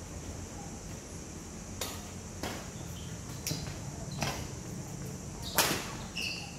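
Badminton rackets striking a shuttlecock during a rally: five sharp hits at uneven intervals, the loudest near the end.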